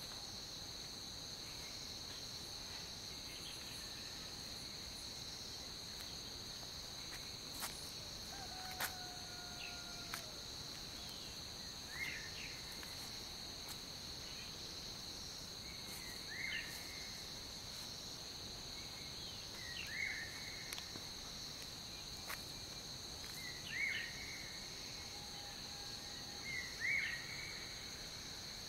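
Steady, high-pitched chorus of insects in woodland. A bird gives short calls about every four seconds in the second half, with a few faint clicks between.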